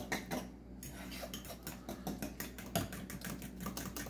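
A utensil clinking and scraping against a bowl while stirring sour cream into thick hummus, a quick irregular run of clicks and scrapes.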